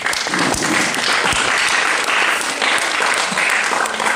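Audience applauding, a steady, dense clapping that holds throughout.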